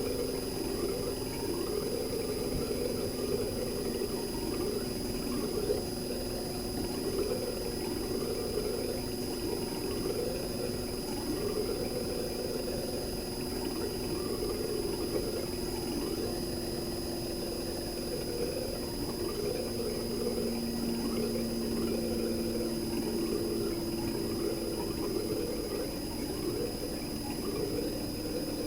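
RECHI single-rotary inverter compressor (43W26SH) of a 2019 Sharp AU-J25XY outdoor unit, running steadily with a hum and a thin high whine. Its tones shift slightly about two-thirds of the way through as the speed changes.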